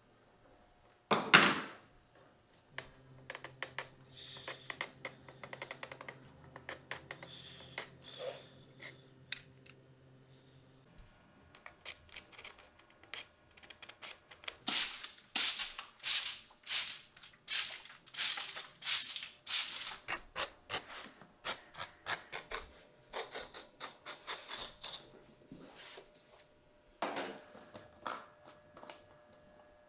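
Hand tools working a leather boot sole: a single knock about a second in, then light clicking, then a run of sharp scraping strokes about two a second. Near the end a screw cap is twisted off a small bottle.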